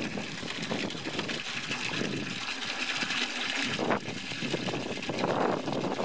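Water gushing from the end of a rain-gutter downspout and splashing into a plastic bucket partly full of water.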